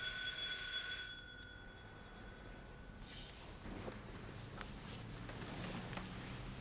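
A bell rings once, for about a second, its tone dying away over the next second or two. Faint rustling and small knocks follow.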